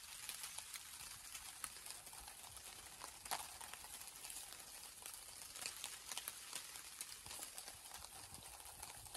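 Building stones knocking and clicking against each other as they are handled and set on a dry stone wall, in irregular light strikes with one sharper knock about a third of the way in, over a steady faint hiss.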